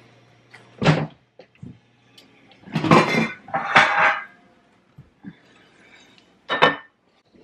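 Kitchen cupboard being opened and bakeware rummaged: a knock, then two scraping, clattering stretches as a loaf pan is pulled out from among other pans, and a sharp clack near the end as the pan is handled.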